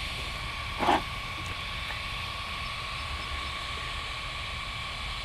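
Small electric cooling fans on an RC truck's motor and speed controller whirring steadily, a hiss with a thin high whine, with a brief rustle about a second in.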